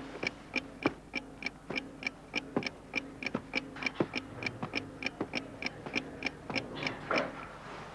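Mechanical clock ticking quickly and evenly, about three and a half ticks a second. Irregular soft knocks and rustling of someone moving about sit beneath it, with a louder rustle about seven seconds in.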